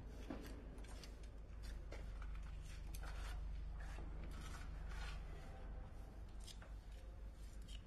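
Hand trowel scraping and pressing repair mortar onto a concrete surface in irregular short strokes, with light taps, over a low steady hum.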